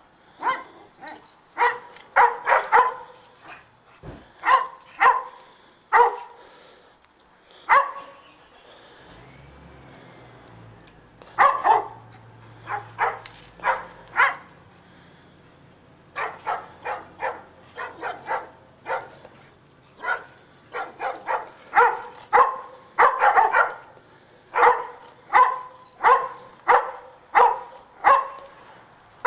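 Dogs barking repeatedly in short, sharp barks, coming in runs of several with brief pauses. Roughly a third of the way in, the barking stops for about three seconds and a faint low hum is heard, then the barking picks up again and keeps going.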